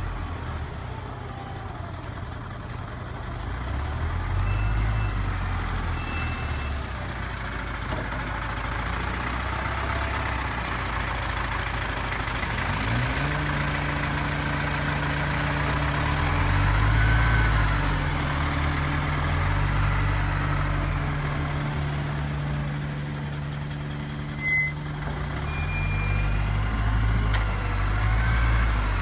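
Diesel engine of a CAT 920 wheel loader running as the machine drives about, its revs rising and falling several times. A steady droning tone comes in about halfway through and drops away near the end.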